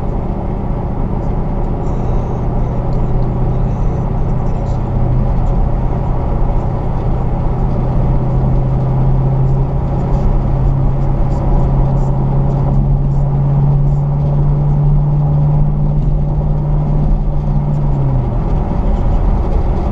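5th-generation Chevrolet Camaro driving, with steady engine drone and road noise. The engine's hum climbs slightly for several seconds, then drops away suddenly near the end.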